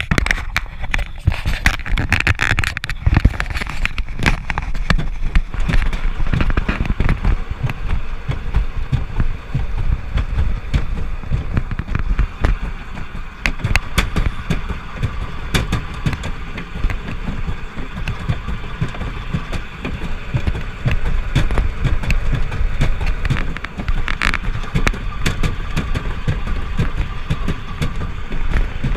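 Summer toboggan sled running down a fibreglass trough track: a continuous rumble with rapid, irregular clattering and knocks as it rolls along.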